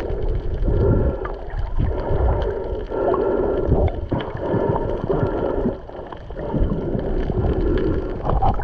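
Muffled underwater water noise picked up by a submerged camera: gurgling and sloshing over a low rumble, swelling and fading in uneven surges, with a brief dip about six seconds in.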